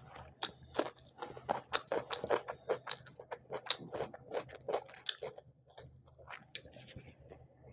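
Close-miked crunching of a raw cucumber slice being bitten and chewed: a dense run of crisp, wet crunches for about five seconds, thinning to softer chewing near the end.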